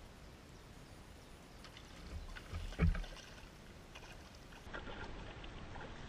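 Water sloshing and splashing as a fishing landing net is swept through lake water, with one sudden louder sound near the middle and scattered small clicks.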